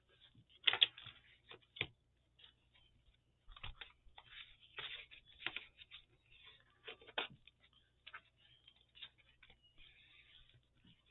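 Paper being handled on a craft table: faint rustling and scattered light taps and clicks as glued paper pieces are pressed and moved, with a few sharper taps about a second in and again near the middle.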